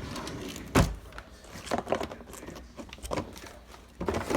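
A series of knocks and thumps, like objects being handled and set down; the loudest comes about a second in.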